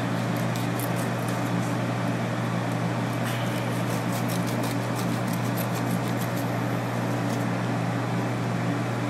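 Steady low electrical hum, as from a kitchen fan or appliance motor, with faint light ticks and scrapes of a fillet knife cutting along a salmon fillet.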